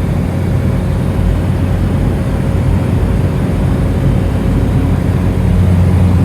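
Cessna Caravan's turboprop engine running with a steady drone and low hum, getting slightly louder near the end.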